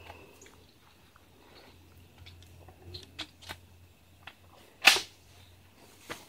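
Scattered clicks and clacks of a Benelli M2 semi-automatic shotgun being handled, with one sharp, much louder clack a little before five seconds in.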